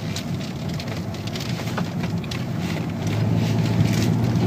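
Car cabin noise while driving: a steady low engine hum with tyre and road noise, heard from inside the car. It grows a little louder about three seconds in.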